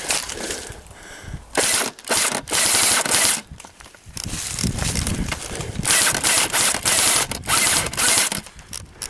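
Several short bursts of airsoft gunfire, the rapid rattling of automatic airsoft rifles.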